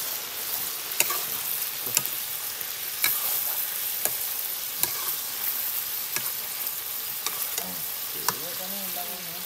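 Local chicken curry frying and sizzling in a metal karahi as it is stirred with a ladle, a steady hiss with sharp clicks about once a second.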